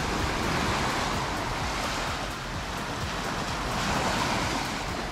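Ocean surf washing in steadily, swelling twice, near the start and again about four seconds in.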